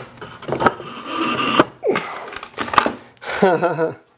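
Sharp metal knocks and clatter as a 40-pound weight is set onto a joint-strength test fixture and the brazed aluminum tube joint under it gives way. Near the end comes a man's short exclamation.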